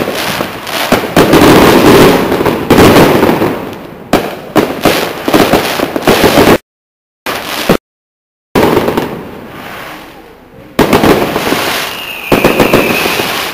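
Fireworks display: a rapid, loud string of overlapping aerial shell bursts and crackling. The sound cuts out completely twice, briefly, about halfway through, and a thin whistle rides over the bangs near the end.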